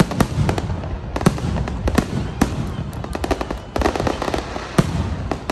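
Fireworks going off: irregular sharp bangs, several a second, over a continuous crackling rumble.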